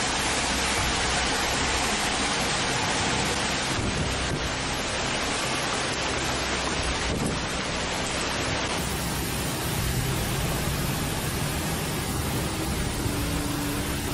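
A hailstorm with heavy rain: hailstones and rain striking streets and cars as one dense, steady hiss. About nine seconds in, the sound shifts abruptly to another steady downpour.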